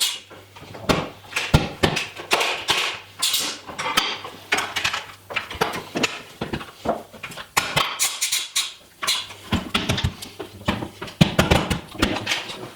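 Irregular knocks and clatters, several a second, with short pauses between runs.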